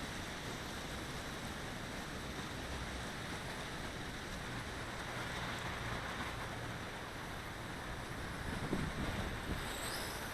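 Strong gusty wind, 30–40 mph, rushing and buffeting the microphone in a steady low rumble, swelling slightly near the end.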